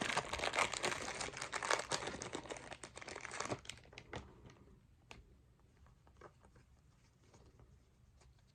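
Baseball card pack wrapper being torn open and crinkled for about three and a half seconds, then only a few faint clicks.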